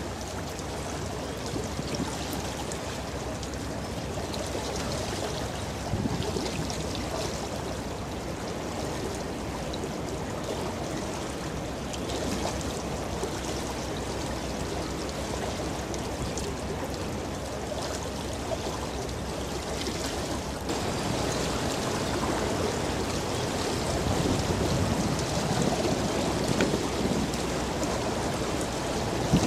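Water rushing and splashing in a ship's breaking bow wave as the hull pushes through the river, growing a little louder in the last third.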